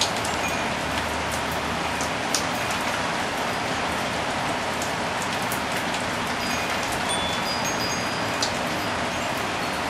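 Steady rain shower, with individual drops clicking sharply close by. A few brief, faint high tinkling tones from wind chimes come and go, mostly in the second half.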